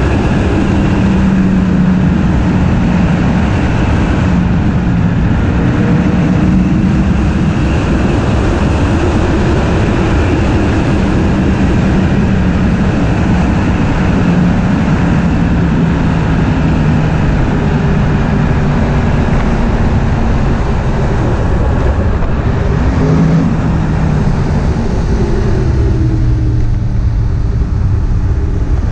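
Yamaha YZF-R1M's crossplane inline-four engine running continuously, its note holding fairly steady and drifting up and down with the revs. The note dips lower a few seconds before the end, then rises again.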